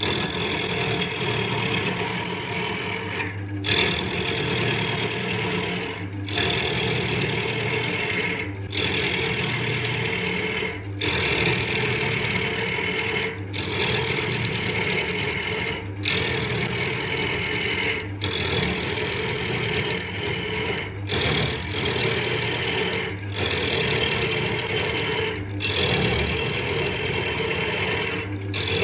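Wood lathe running, with a tool scraping on the spinning wood; a steady hum under a rough scraping noise. The sound drops out for an instant about every two and a half seconds.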